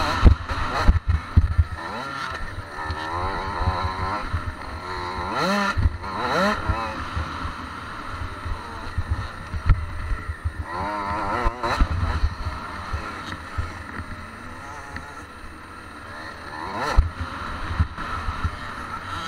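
Motocross dirt bike engine running hard along a dirt track, its pitch rising in several revving sweeps as it accelerates, with frequent low thumps underneath.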